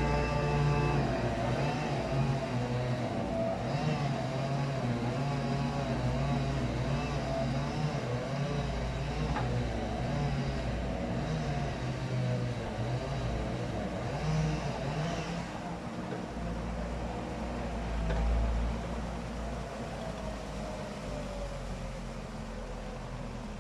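Engine of a heavy vehicle running, its pitch rising and falling a little, slowly fading toward the end.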